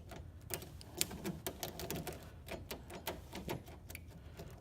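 Steel jiggler key being rocked and wiggled in the lock of an old Ford F250, trying to trip the lock: irregular light metallic clicks and rattles, several a second.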